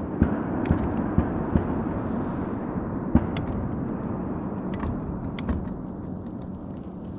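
Shotgun fire from nearby duck hunters: a long rolling rumble that fades slowly over several seconds, with several sharper cracks in the first few seconds.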